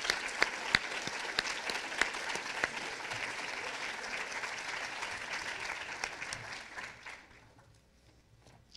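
Audience applauding: many hands clapping, with a few sharp single claps standing out, dying away about seven seconds in.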